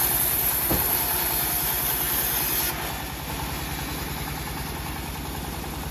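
Engine of a homemade bandsaw sawmill running steadily at idle, with a quick firing beat. About three seconds in, a high hiss stops and the sound gets quieter, leaving the engine alone.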